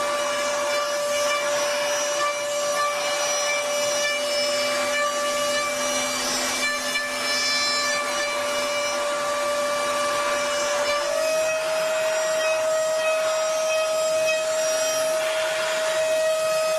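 Metalworking machine tool running: a steady motor whine over a rough hiss, the whine stepping slightly higher in pitch about eleven seconds in.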